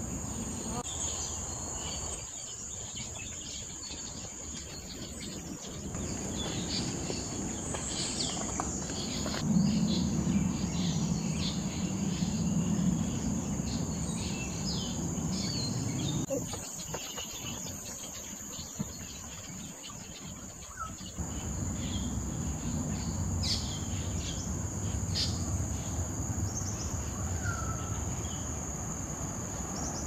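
Steady high-pitched drone of insects, with scattered short bird chirps and a low rumble that is loudest from about a third of the way in to about halfway.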